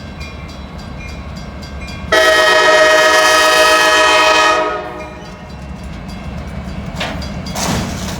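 CSX freight locomotive running with a steady low rumble, then sounding its multi-tone air horn in one long blast of about two and a half seconds. Near the end come a couple of sharp crunching knocks as the train runs over the fallen crossing gate arm.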